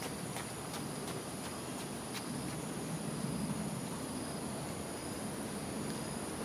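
Dusk ambience: a steady high drone of insects over a low hum like distant traffic, with a few faint ticks in the first two seconds.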